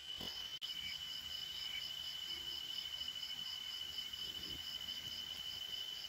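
Night insects, crickets, chirping: a steady high trill with a second call pulsing above it, about five chirps a second. The sound drops out for an instant just after the start.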